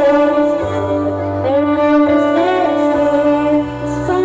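Girls' choir singing long held notes that move from pitch to pitch, over an instrumental backing with a low bass.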